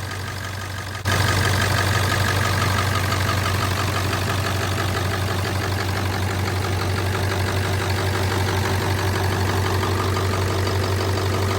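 Ford 7.3 Powerstroke V8 turbo-diesel idling steadily with a light diesel clatter; about a second in, it abruptly gets louder and fuller.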